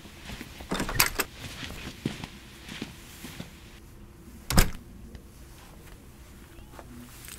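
A door being pushed open with a clatter about a second in, then swinging shut with one loud thud a little past halfway, with light footsteps between.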